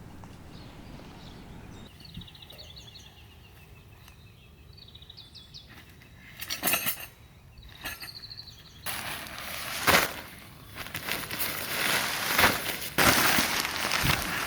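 Birds chirping faintly, then rustling, clinking and knocking from camping gear being handled, getting louder in the second half with a few sharp knocks.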